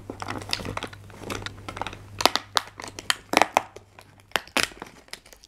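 Cardboard advent calendar door being torn open along its perforations and the card handled: irregular crinkling and tearing with small clicks and a few sharper snaps.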